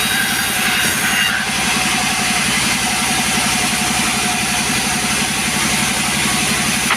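Chainsaw engine running steadily, with a slight change in tone about a second in.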